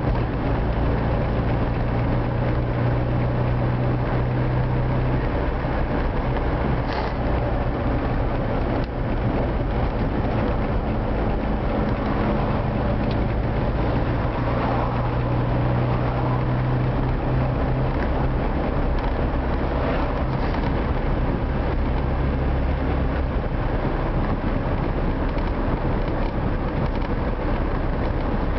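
Engine and road noise of an old Moskvich car heard from inside its cabin while driving, a steady hum whose pitch shifts a few times as the car goes.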